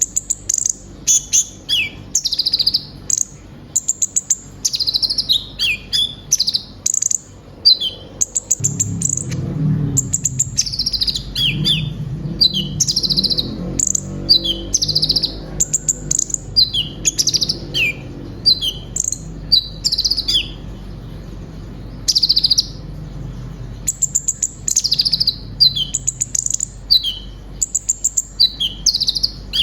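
A kolibri ninja (konin) sunbird singing a fast, busy song of high chirps, quick trills and sharp down-slurred notes, with hardly a pause. The song is full of mimicked phrases ('isian').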